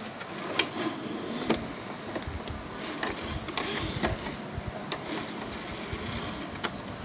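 Small motor and plastic gear train of a DVD player's disc drive mechanism running, a steady mechanical whirr with scattered clicks.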